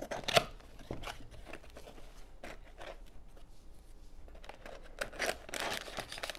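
Cardboard box being opened by hand: the flap tears open with a sharp rip about half a second in, followed by scattered cardboard clicks and scrapes. Near the end, foil blind bags crinkle as they are lifted out of the box.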